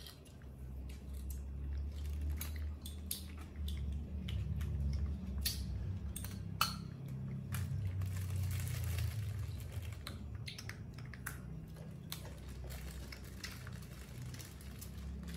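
Baby macaque biting and chewing crisp fruit slices: irregular small crunches and clicks over a low steady hum.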